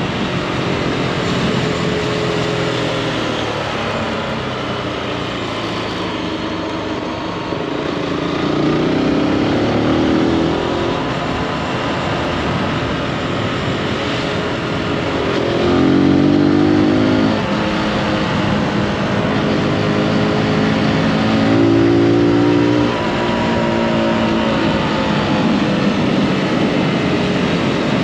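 Zontes G155 motorcycle's single-cylinder engine under way, its note climbing in pitch in three surges of acceleration as the throttle opens, over a steady rush of wind and road noise.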